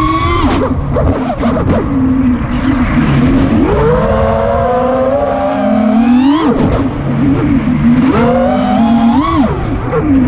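FPV racing quadcopter's four Lumenier 2206 2350kV brushless motors and DALPROPS T5046C propellers whining, heard from the drone itself, their pitch rising and falling with the throttle. About six seconds in the pitch climbs steeply and then drops sharply, and it rises and falls quickly again near the end.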